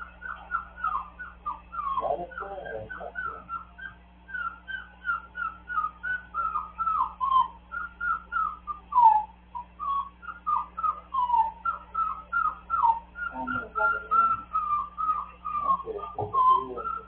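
A small dog whining, a continuous string of short, high, falling whimpers at about three a second. Lower, rougher vocal sounds come in about two seconds in and again near the end.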